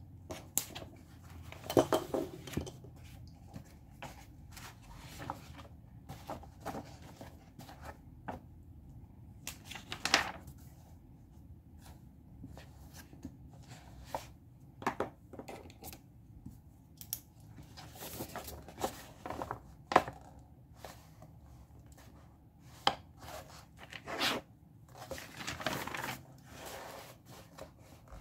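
Paper handling: pages of a workbook being turned and pressed flat, with short rustles of paper and scattered small taps and clicks on the desk.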